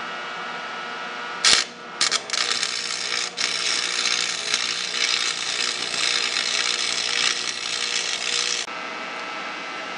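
AC stick-welding arc at about 110 amps, welding a broken bushing on a snowblower's transmission drive. The arc strikes briefly about a second and a half in, catches again a moment later, then burns steadily for about six seconds before cutting off suddenly.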